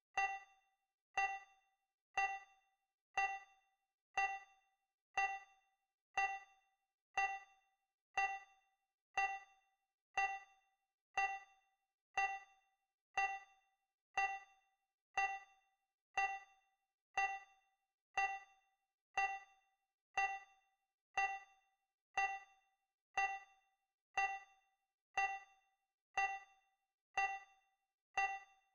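Countdown timer's tick sound effect: a short, bright ding once every second, each one dying away quickly.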